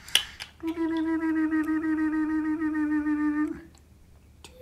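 A sharp click, then a person's voice holding one long, steady hummed note for nearly three seconds, which breaks off suddenly.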